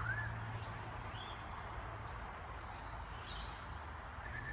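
Birds calling: one call right at the start, then a few faint short chirps, over a steady low background hum.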